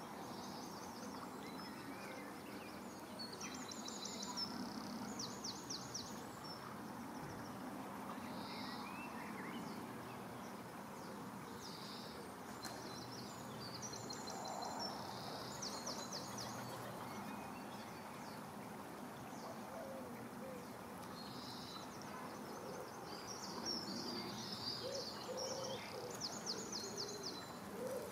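Small birds singing, high quick trilled phrases repeating every few seconds over a steady outdoor background hum. A low hooting call joins near the end.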